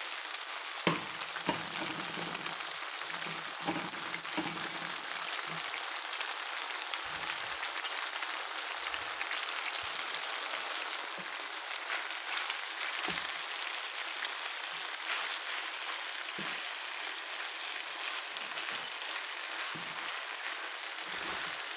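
Stir-fried noodles and vegetables sizzling in a frying pan, a steady hiss, with a few sharp knocks of a wooden spatula against the pan as they are stirred, the loudest about a second in.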